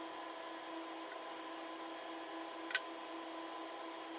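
Steady faint room hum with one sharp, short click about two-thirds of the way through, from the knife-and-board work of trimming a raw lamb heart.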